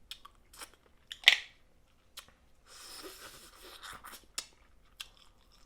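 Snow crab legs being cracked and pulled apart by hand: scattered sharp shell clicks with one loud crack about a second in, then a longer rustling stretch as the meat is worked out and eaten.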